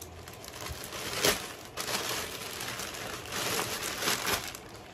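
Plastic mailer bags crinkling and rustling as they are handled and opened, in uneven bursts, with a sharp, loud crackle about a second in.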